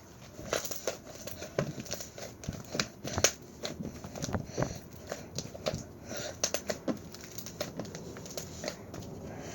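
Hands pressing, folding and stretching a white chewy slime, giving a dense, irregular run of sticky clicks and small pops.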